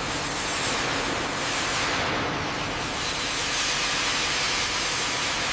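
A steady, loud hiss with no rhythm or distinct strikes.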